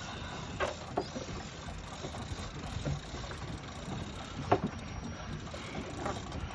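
Steady wash of sea and wind around a fishing boat, with a few sharp clicks and knocks from the heavy rod and reel as a big fish is pumped up.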